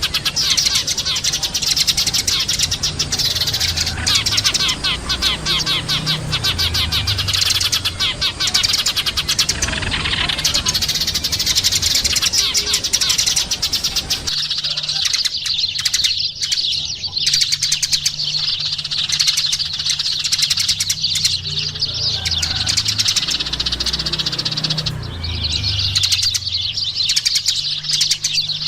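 Sparrows chirping in a dense, continuous stream of rapid, overlapping chirps.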